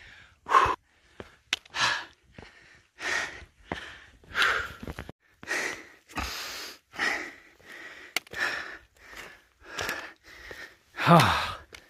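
A hiker breathing hard, about one heavy breath a second, while climbing a steep granite slab. Near the end comes a louder voiced exhale that falls in pitch, like a groan.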